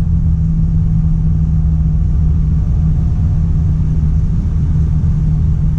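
Steady low drone of a loaded truck's engine heard inside the cab, running at constant speed on a downhill while the engine brake and retarder hold the truck at about 35 km/h, with road rumble underneath.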